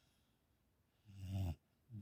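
A dog snoring in its sleep: quiet for about a second, then one low snore of about half a second, followed by a short snuffle near the end.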